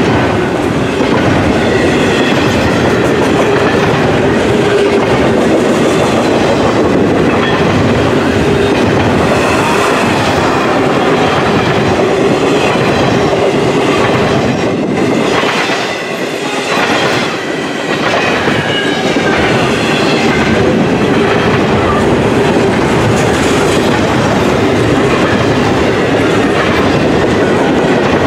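Double-stack intermodal freight train of container well cars passing close by, with a loud, steady rumble of steel wheels on rail and clatter over the rail joints. The sound eases briefly about halfway through.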